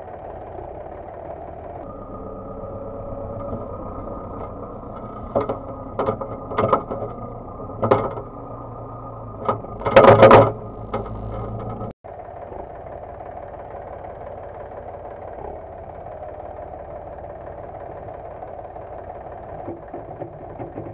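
Tractor engines running steadily. In the middle comes about ten seconds of a loaded manure spreader travelling over the field: a steady whine with a string of loud knocks and rattles, the loudest about ten seconds in.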